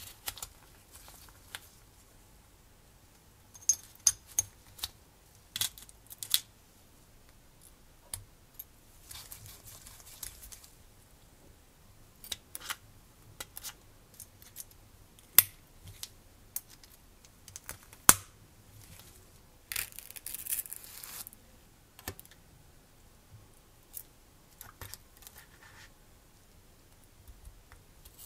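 Small metal and plastic parts of a model engine kit being handled close up: irregular sharp clicks and taps, the loudest two about midway, with two brief stretches of rustling.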